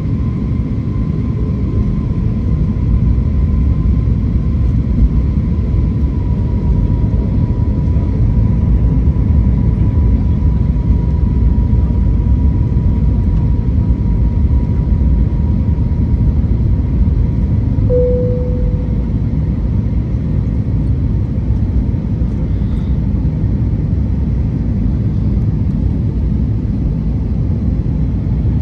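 Steady low rumble of a jet airliner's cabin on its landing approach, with a faint steady high whine over it. A brief single tone sounds once about two-thirds of the way through.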